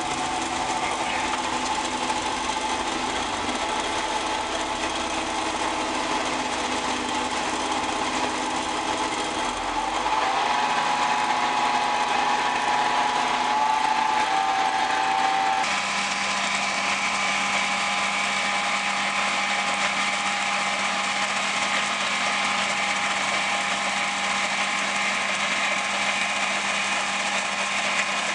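Vehicle engine running steadily with a whine. Its pitch shifts about ten seconds in, and the sound changes suddenly at about sixteen seconds to a different steady engine tone.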